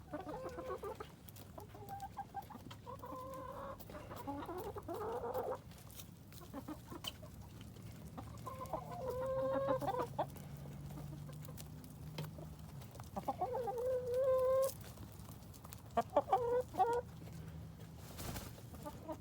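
Backyard hens clucking and making drawn-out squawking calls, several held calls a few seconds apart, the loudest around halfway through and near the end, with short pecking-like clicks in between.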